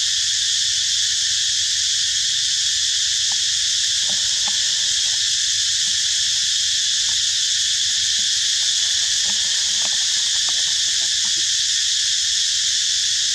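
Steady, high-pitched drone of a dense insect chorus, unbroken and even in level throughout.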